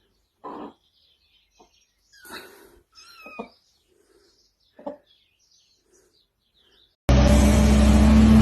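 A few short pitched animal calls, one a falling cry about three seconds in, with pauses between them. About seven seconds in, a loud steady noise with a low hum cuts in suddenly.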